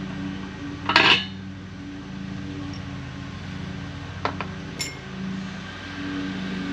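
Metal parts and hand tools clanking during assembly of a steel football tackling sled: one loud clank about a second in, then two lighter ringing metallic clinks around four to five seconds.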